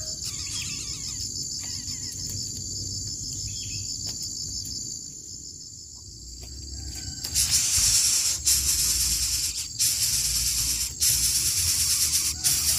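A steady, finely pulsing high insect buzz, like a cricket chorus. About seven seconds in it gives way to a louder, rough rustling hiss that comes in long stretches with short breaks.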